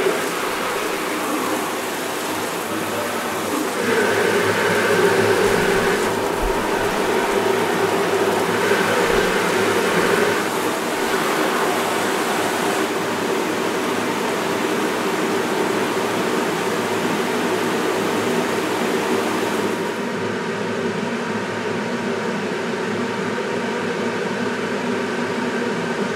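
Water spraying from several shower heads onto a basin, layered into a steady rushing hiss with faint held pitches beneath it. About twenty seconds in, the hiss loses its highest edge and turns duller.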